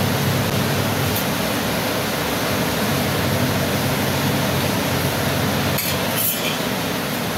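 Steady rushing noise with a low hum from the gas burner heating the domed tawa under a thin roti. A brief clink about six seconds in.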